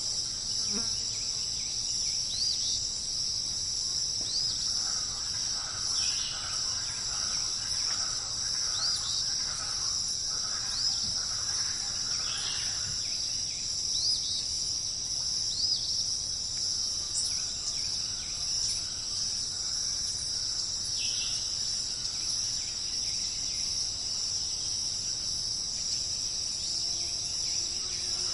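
Steady, high-pitched shrill of a chorus of insects, unbroken throughout. Short chirps of a bird cut in about a dozen times, with some softer chattering in the first half.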